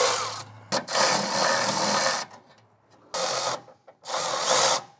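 Cordless electric ratchet with a swivel 10 mm socket on an extension running in four short bursts, each half a second to a second and a half long, as it backs out the 10 mm bolts under the radiator cross brace.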